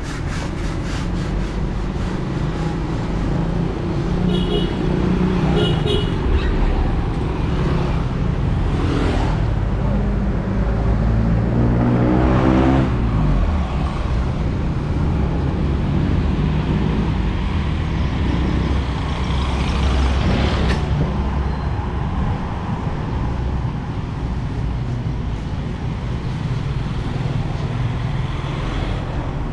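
City street traffic: cars and motorcycles running past in a steady rumble. About twelve seconds in one vehicle passes close, its engine note falling in pitch as it goes by, and a few short high chirps sound around five seconds in.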